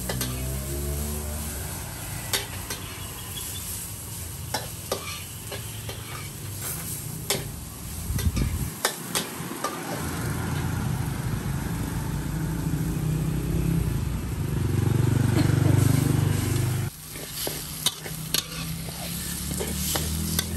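Metal spatula scraping and clinking against a steel wok as pork and chilies are stir-fried, sizzling in the oil. A low rumble runs underneath; it swells about three quarters of the way through and cuts off suddenly.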